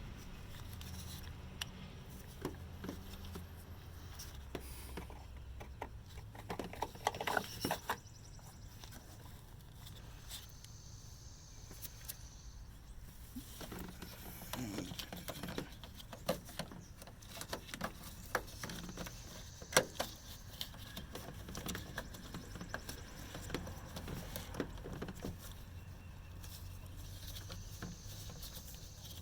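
Scattered clicks, knocks and rattles of hand work, in clusters, with a low steady hum during the first five seconds or so.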